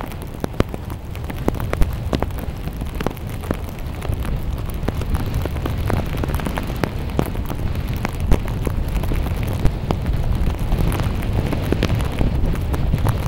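Wind buffeting the microphone with a heavy rumble during skiing in a blizzard, mixed with many sharp crackling clicks.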